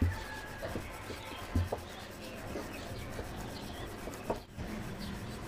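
Rolling pin rolling a thin disc of flour-dusted maida dough on a rolling board: a steady rubbing, with a few light knocks of the pin.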